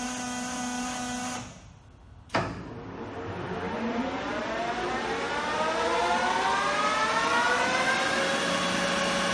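LeBlond engine lathe headstock running, then falling away briefly. A sharp click follows as the drive engages, and the spindle gearing whines upward in pitch for several seconds as it spins up to its top speed of 1600 RPM, then holds steady.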